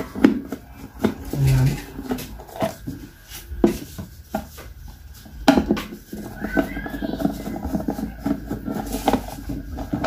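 A screwdriver unscrewing the screws in the plastic base of a Hanabishi stainless-steel electric kettle: scattered clicks, scrapes and knocks of the tip and handle against the base.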